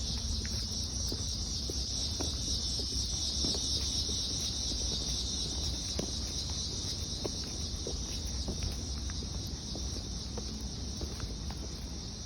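Steady high-pitched chorus of insects, with a low rumble underneath and scattered faint ticks.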